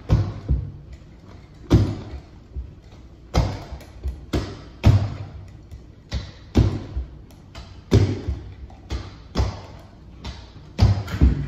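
Carpet being knocked into place on a stair with a carpet-fitting tool: a dozen or so sharp thumps and knocks, about one or two a second, unevenly spaced.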